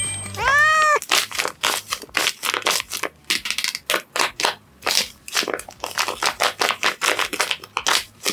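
Paper being crinkled and squeezed: quick, irregular crackles and rustles, as when a paper squishy is handled and pressed. It is preceded in the first second by a short meow-like call that rises and falls in pitch.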